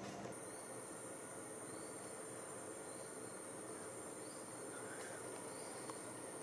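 An insect's steady, high-pitched unbroken buzz, faint, over a quiet hum of forest background.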